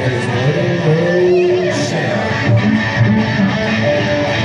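Live progressive rock band playing, with electric guitar to the fore.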